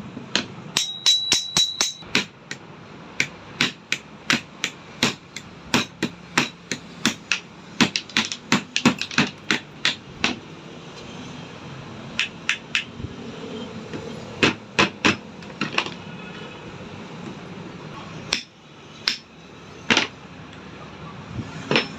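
Hammer blows knocking a jammed, stiff bearing off the motor shaft of an electric madhani (churner): a rapid run of sharp strikes over the first half, then fewer, spaced-out blows.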